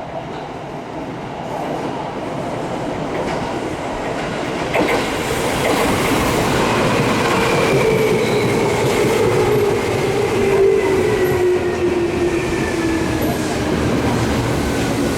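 Electric commuter train pulling into a station platform and braking, its wheels rolling over the rails as it grows louder, with the traction motors' whine falling steadily in pitch as it slows.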